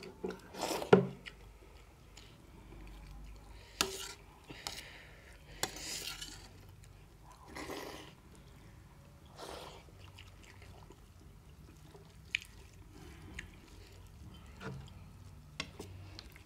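Metal spoon clinking and scraping against a stainless steel plate and bowl: scattered separate clicks and short scrapes, the loudest about a second in.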